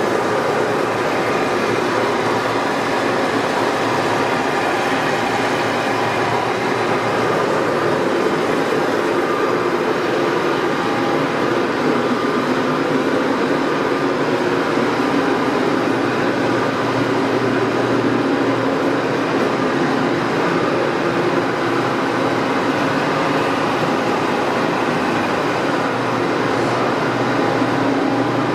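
Warner & Swasey No. 4A square-head turret lathe running under power: a steady machine hum with several held tones and no knocks or changes.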